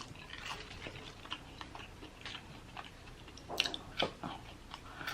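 Close-up chewing and biting of crispy fried chicken wings: irregular wet smacks and crunchy crackles, with a couple of louder bites past the halfway mark.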